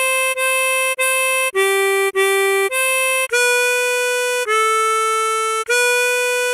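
A tremolo harmonica plays a slow melody one note at a time. Several repeated C5 notes are followed by two lower G4 notes, then C5, B4, A4 and B4, each held for about half a second to a second with short breaks between.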